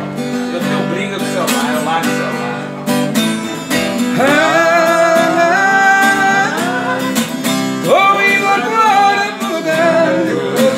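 Acoustic guitar strummed steadily, with a man singing over it from about four seconds in, holding long notes, pausing briefly and coming back in near the end.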